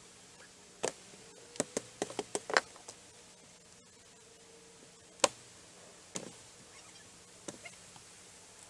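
Irregular sharp knocks and clicks of hand work on wooden deck boards. They come in a quick cluster a second or two in, with the single loudest knock about five seconds in.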